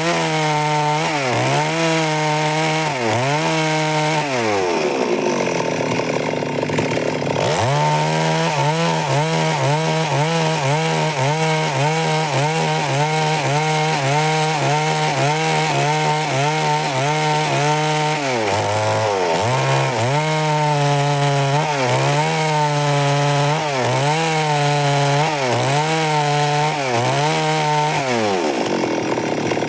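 Stihl MS 382 two-stroke chainsaw running at high revs while cutting wood, its pitch dipping about once a second. The revs fall away a few seconds in, rise again, dip briefly in the middle and drop near the end.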